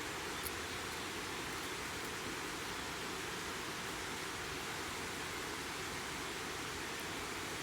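Steady rush of river water pouring over a weir, with one faint click about half a second in.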